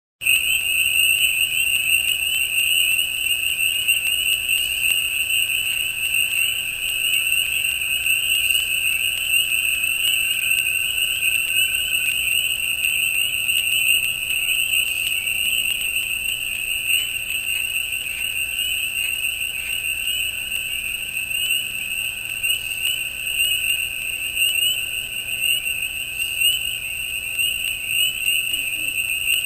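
Dense chorus of spring peepers, many high peeps overlapping into a continuous shrill din, over a steady high trilling of crickets and fainter lower frog calls.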